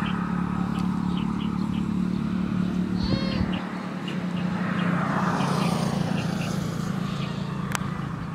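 A motor vehicle's engine drone, steady and low, swelling a little about halfway through, with short high bird chirps over it.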